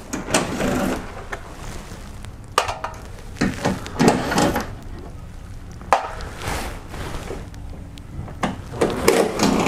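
Irregular knocks, clicks and short rattles from a hand ratchet with an 8 mm socket working bolts out of a BMW F30's plastic engine splash shield.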